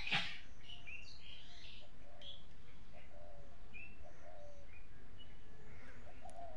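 Fish frying in hot oil in a wok, a steady sizzle. Birds chirp briefly here and there, and a sharp knock sounds just after the start.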